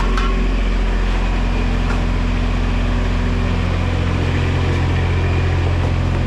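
Diesel engine of a V1000 mini skid steer running steadily, with a deep even hum; its note shifts slightly about four seconds in.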